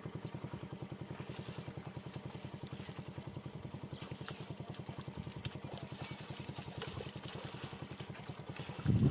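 A small engine idling steadily with an even, rapid low beat of about ten pulses a second, with a brief louder low thump near the end.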